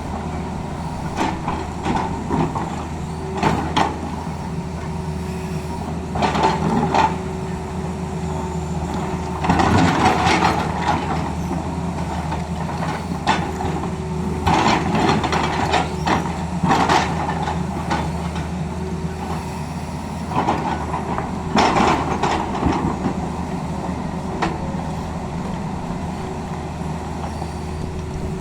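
Tata Hitachi excavator's diesel engine running steadily, with short louder bursts of noise every few seconds as the machine works.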